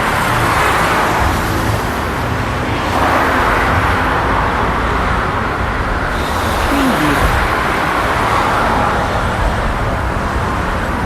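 City road traffic: a continuous stream of cars and trucks, their tyre and engine noise swelling and fading every few seconds as vehicles pass.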